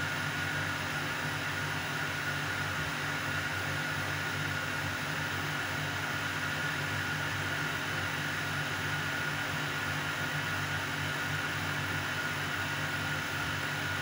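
Steady low hum and hiss with a faint high whine, unchanging throughout.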